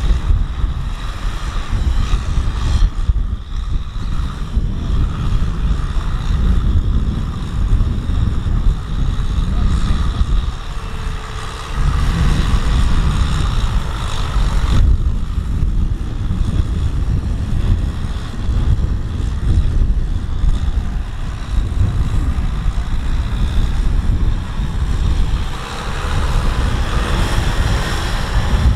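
A Kubota M6040SU tractor's diesel engine running hard as the tractor churns through deep, sticky mud, with wind buffeting the microphone.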